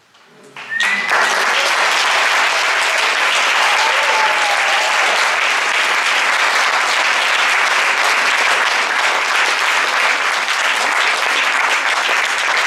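Audience applause that builds quickly about a second in and then holds steady and loud, with a couple of brief whoops over it early on.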